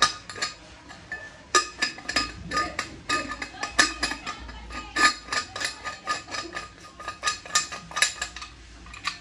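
Brass kitchen utensils clinking and knocking against each other as they are handled: a rapid, irregular run of metallic clinks, each ringing briefly. There is a short pause about a second in, and the clinks stop near the end.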